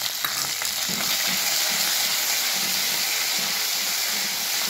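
Tempering of whole spices, slit green chillies and fresh curry leaves sizzling in hot ghee in a kadhai: a steady, loud hiss that swells in the first second as the leaves hit the fat, while a wooden spatula stirs them.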